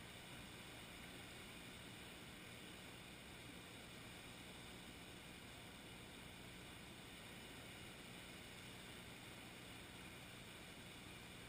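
Near silence: a faint, steady hiss with no distinct events.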